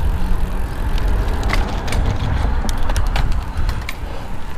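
Wind rumbling on a helmet-mounted camera's microphone while riding a bicycle, with a run of sharp, irregular clicks and rattles in the middle.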